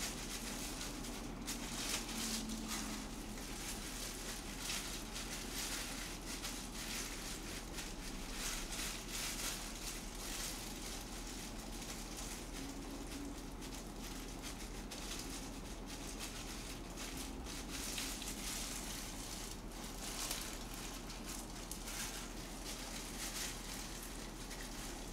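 Faint, irregular soft clicks and rustles of hands pressing seasoned rice into fried tofu pockets while making inari sushi.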